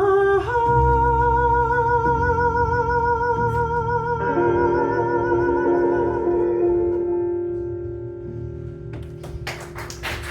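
A live band's closing chord: a long held note with vibrato over sustained guitar and keyboard chords, fading out over the last few seconds. Clapping breaks out near the end.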